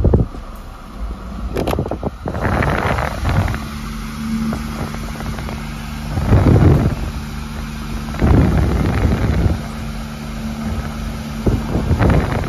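Steady low hum inside a car, with repeated bursts of rustling handling noise.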